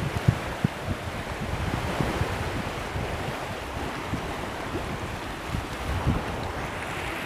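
Small sea waves washing and splashing against a concrete breakwater, with wind buffeting the microphone in low gusty rumbles.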